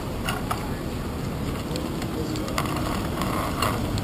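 Bicycle riding over city pavement as heard from a handlebar-mounted camera: steady wind and road rumble, with a few sharp rattling clicks from bumps.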